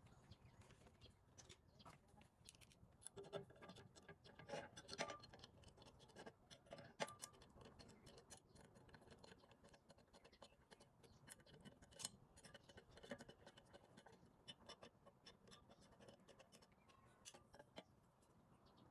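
Faint, scattered clicks and light scraping from tools and small parts being handled, irregular and with no steady machine sound.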